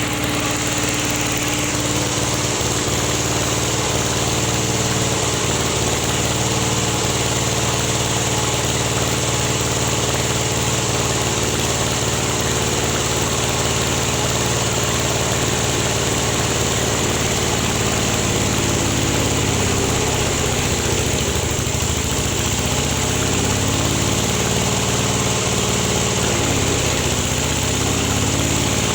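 Small engine running steadily, driving a rubber sheet press (latex roller mill). Its tone wavers for a while from about twenty seconds in.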